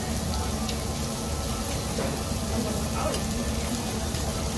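Meat sizzling on a tabletop Korean barbecue grill plate: a steady hiss over a low, steady hum.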